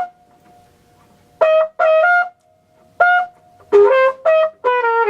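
Flugelhorn playing a phrase of short, detached notes: a note cut off right at the start, a rest of about a second and a half, then six notes that come closer together towards the end.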